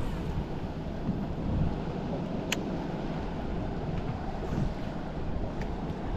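Wind on the microphone and water sloshing against a small boat, a steady low rush, with one sharp click about two and a half seconds in.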